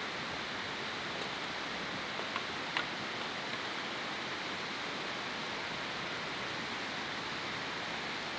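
Steady rushing of running water, like a stream flowing over stones. Two light clicks a little over two seconds in.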